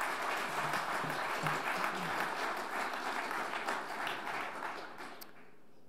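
Audience applauding, many hands clapping at once, fading out about five seconds in.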